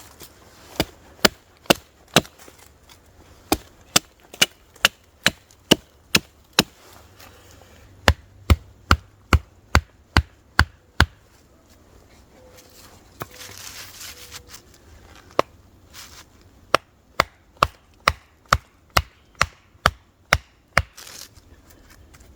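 Wood being chopped: runs of sharp, quick strikes, about two to three a second, broken by short pauses.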